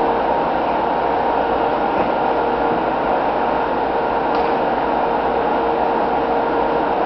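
A steady hum with a constant hiss, unchanging throughout.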